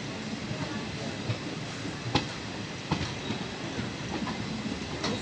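Train running along the track: a steady rumble with a few sharp clacks of wheels over rail joints, spaced irregularly.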